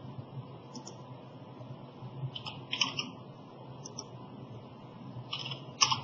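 Faint, scattered clicks of a computer keyboard and mouse, several in quick clusters, over a steady low hiss.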